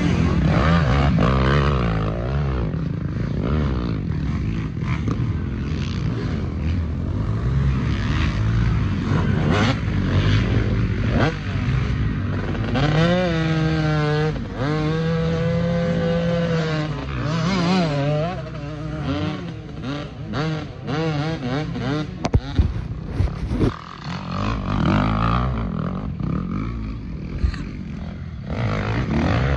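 Motorcycle engines running and revving, the pitch rising and falling; about halfway through one engine holds a steady pitch for a few seconds.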